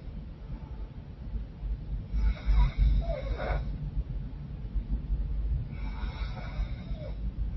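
A woman snoring through a congested, runny nose. There are two snoring breaths about three and a half seconds apart, the first the louder. Each has a low rough rumble and a thin falling nasal whistle.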